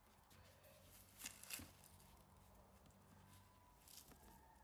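Near silence, with two faint, brief rustles of a cardboard gift box being handled about a second and a half in.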